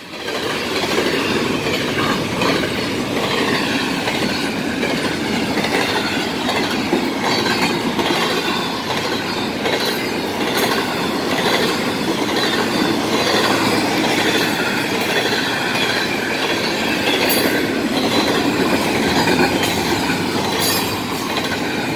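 Florida East Coast intermodal freight train rolling past at speed: steady rumble of wheels on rail from the passing double-stack cars, with occasional sharp clacks as wheels cross the rail joints.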